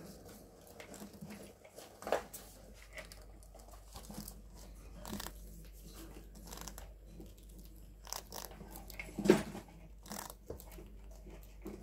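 Pet rat gnawing and chewing food, a run of small irregular crunches and crackles with rustling in wood-shaving bedding. A sharper crack comes about two seconds in and a louder one about nine seconds in.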